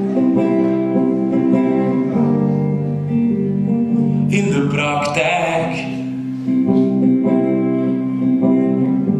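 Electric guitar played through an amplifier, strummed chords held and left ringing, changing every second or two, with a brighter, wavering passage about halfway through.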